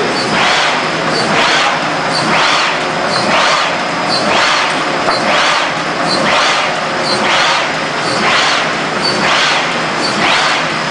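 Automatic hot foil stamping machine running at a steady production speed, cycling about once a second. Each cycle is a rushing swell of noise with a faint click.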